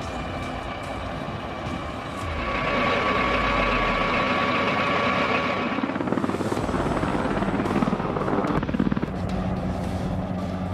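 AH-1Z Viper attack helicopter: a steady turbine whine over a low rumble, turning about six seconds in to a rapid chop of the rotor blades.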